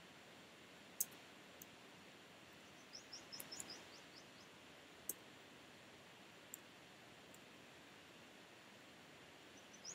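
Quiet room tone with a few single sharp computer keyboard key clicks, the loudest about a second in. A quick run of short, high, falling chirps from a small bird comes around three seconds in.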